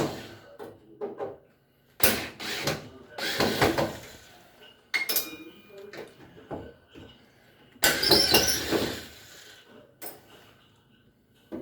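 Metal clinks and rattles as screws are taken out of a front-load washer's sheet-metal front cabinet, in several separate bursts of handling noise.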